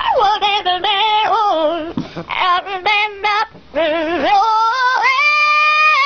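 Parrot singing a tune of wavering notes with strong vibrato. It opens with a falling slide and ends with a long, steady held note in the last second or so.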